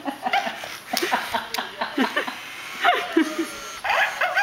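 A parrot and a dog calling back and forth in many short calls that rise and fall in pitch, some high and some low.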